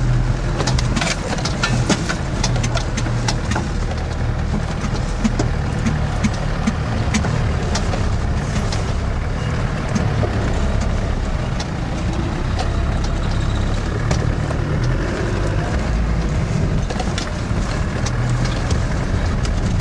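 Land Rover Defender 90's 300Tdi diesel engine running steadily at low speed over rough ground, heard from inside the cab, with frequent sharp knocks and rattles throughout.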